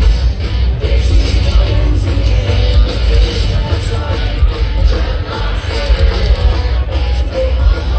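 Live rock band playing loudly: pounding drums and heavy bass with distorted guitars and some singing.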